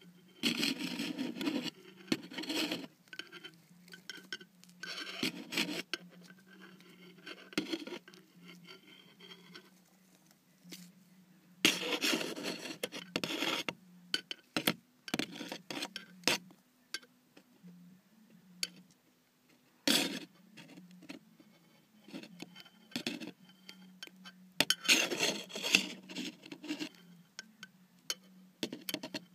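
Irregular bursts of scraping and rubbing: handling noise from tongs and a hand working inside a plastic tarantula enclosure, against its web and shed skin. A faint steady low hum runs underneath.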